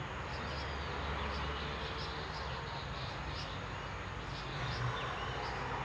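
Outdoor background of insects chirping in short, repeated high notes over a steady low rumble.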